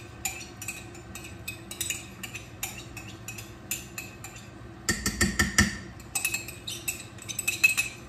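A spoon stirring in a metal cooking pot, clinking and scraping against its sides in irregular knocks, with a louder run of clattering about five seconds in.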